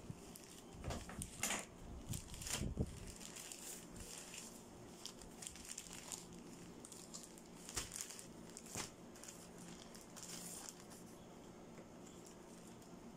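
Frosted plastic clothing bags crinkling and rustling as they are handled, with sharp crackles, loudest in the first three seconds and again about eight seconds in.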